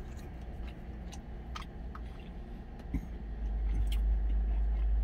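Low, steady vehicle engine rumble heard from inside a truck cab, growing louder about three seconds in, with a few light clicks of wooden chopsticks against a plastic food container.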